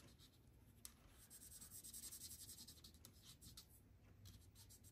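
Faint scratching of a Stampin' Blends alcohol marker's tip colouring on cardstock, in a series of short strokes.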